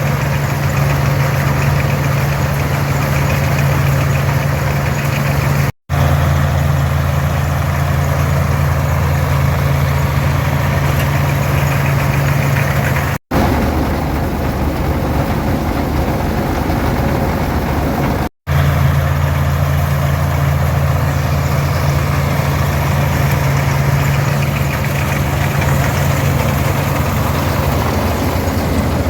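Farmall 460 diesel tractor engine running steadily while pulling a combine through the crop, a low, even drone. The sound cuts out briefly three times.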